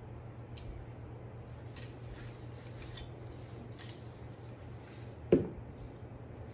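Dog-wheelchair frame being assembled by hand: light metallic clicks and clinks from its aluminium struts and fittings, then a single dull thump about five seconds in, the loudest sound. A steady low hum runs underneath.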